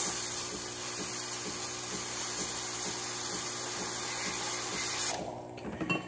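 Espresso machine pump running steadily with a hum while a double shot extracts through a bottomless portafilter, then cutting off about five seconds in as the shot ends.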